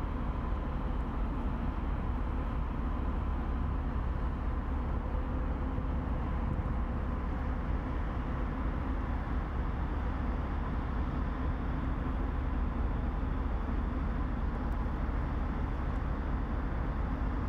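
Steady low rumble of a passing inland tanker ship's engine, with a faint steady hum running over it.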